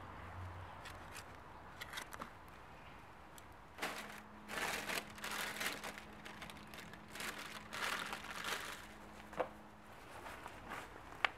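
Bulb packets crinkling and rustling in gloved hands as they are handled and pulled from a wicker basket, starting about four seconds in, with a couple of sharp clicks near the end.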